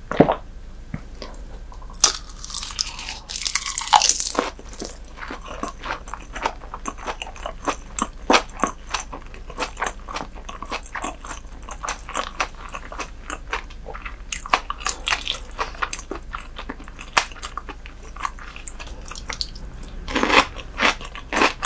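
Close-miked chewing and biting of raw herring sashimi: wet mouth clicks and smacks, several a second, with a short hissing rustle about two seconds in.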